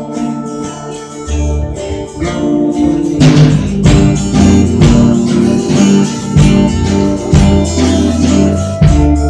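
Live band playing an instrumental passage of a song, led by strummed guitar; the band comes in fuller and louder about three seconds in.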